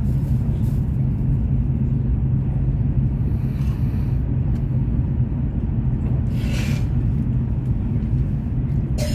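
Steady low rumble of a Fuxing CR400BF-Z high-speed train heard from inside the carriage while running at speed. Two brief hissing swells come about a third and two-thirds of the way in, and there is a short click near the end.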